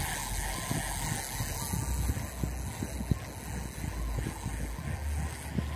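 A spinning reel being cranked to wind in a bottom-fishing line, with fast, irregular ticking over a steady low rumble.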